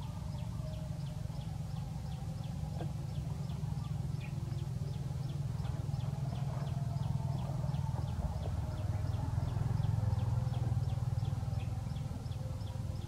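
Outdoor ambience: a steady low rumble that swells briefly past the middle, under a faint high chirp repeating about four times a second.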